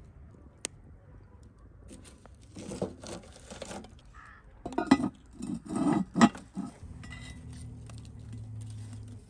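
Cast-iron Dutch oven and its lid clanking metal on metal, a string of knocks and scrapes loudest about halfway through, as the lid goes on and hot coals are set on it with metal tongs.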